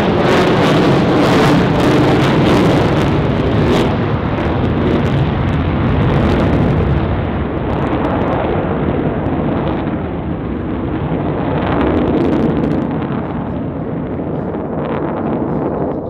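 Military display aircraft flying past low with a loud engine roar. It crackles through the first few seconds and then slowly fades near the end.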